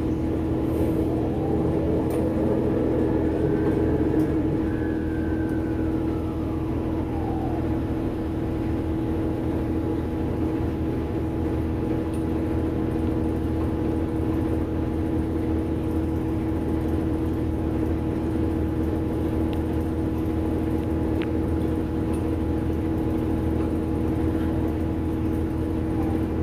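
Orion VII Next-Generation city bus running, heard from inside the cabin: a steady drone with a few held tones, and a whine that climbs and then falls in pitch over the first several seconds as the bus pulls away from the stop.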